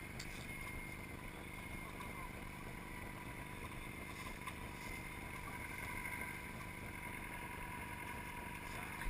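Off-road vehicle engine running steadily at low revs, with a faint steady whine over the hum.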